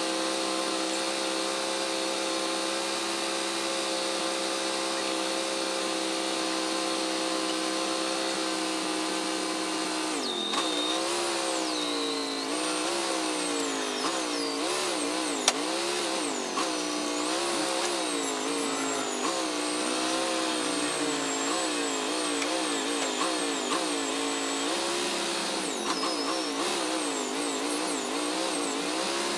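Wood-Mizer LT40 Hydraulic sawmill engine running steadily, then dipping and recovering in pitch over and over from about ten seconds in as the hydraulic log-handling controls load it. Thin high squeals ride over it while the hydraulics work.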